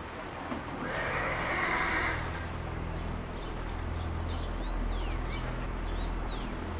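A horse neighing briefly about a second in, then a steady low hum with a few short, high, arching chirps near the end.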